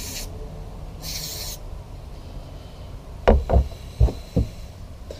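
Two short hisses of aerosol spray, near the start and about a second in, cleaning a carburetor plate, followed a couple of seconds later by four dull knocks of parts being handled on the table.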